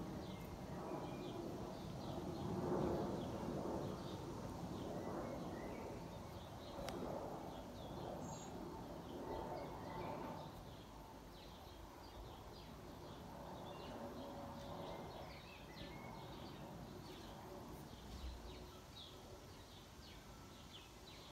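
Distant jet noise from a Boeing 737-800's CFM56-7B turbofans passing high overhead: a low, even rumble that slowly fades as the airliner moves away. Small birds chirp throughout.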